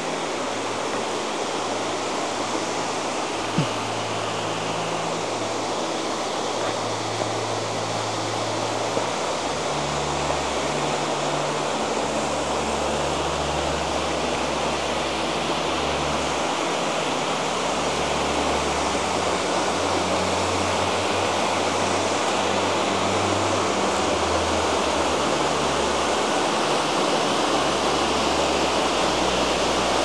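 Waterfall pouring over a rock face into its plunge pool: a steady rush of falling water, growing slightly louder toward the end. A single small tick sounds about three and a half seconds in.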